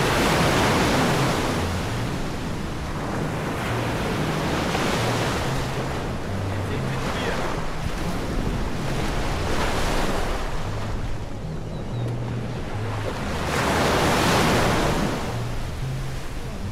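Ocean waves breaking on a beach, the surf swelling and fading about every four to five seconds, with wind buffeting the microphone.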